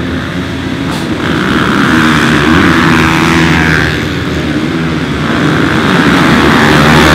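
Motocross bikes accelerating hard away from the start gate, engines revving at high throttle, getting louder near the end.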